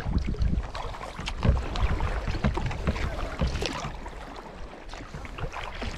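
Sea kayak being paddled on calm seawater: irregular splashes and drips of water from the paddle and hull, over a fluctuating low rumble of wind on the microphone.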